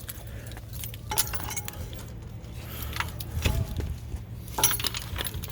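A few light metallic clinks and clicks, spaced about a second or more apart, over a steady low hum.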